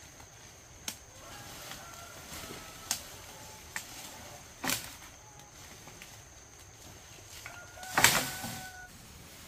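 Branches snapping and wood cracking as dry firewood is broken and pulled out of the undergrowth. There are several sharp cracks, and the loudest comes near the end with a crackling rush of twigs and leaves.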